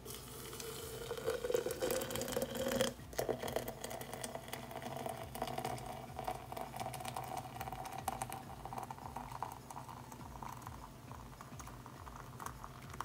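Hot water poured in a steady stream from a kettle into a glass French press of coffee grounds. The pour breaks briefly about three seconds in, and its pitch rises as the press fills.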